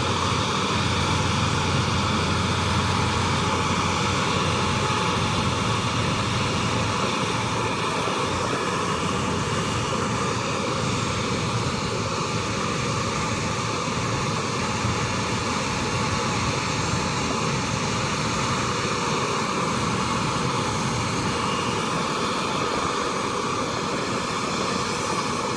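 Steady jet airliner engine noise from an aircraft at the airport, an unbroken whooshing drone with no rise or fall.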